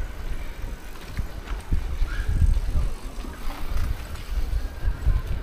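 Wind buffeting the microphone: an uneven low rumble that swells and fades.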